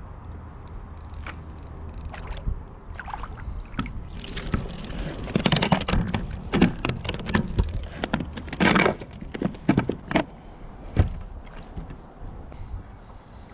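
Close handling noise: a run of sharp clicks, knocks and rustles as the camera and gear are handled right at the microphone, busiest from about four seconds in to about eleven seconds, over a steady low rumble of wind on the microphone.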